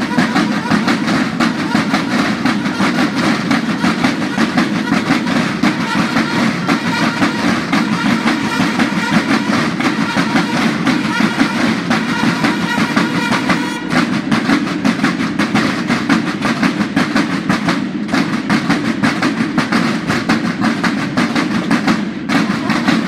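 A massed corps of military field drums playing a fast, continuous cadence of rapid strokes, briefly thinning twice in the second half.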